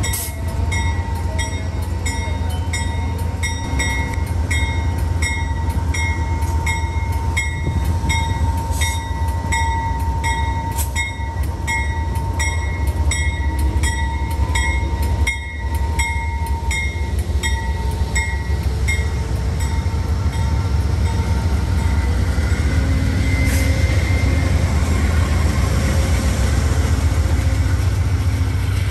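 Amtrak GE Genesis diesel locomotives rolling slowly past at close range, the engines giving a steady low rumble. The locomotive bell rings about twice a second and stops about two-thirds of the way through, over a faint steady squeal.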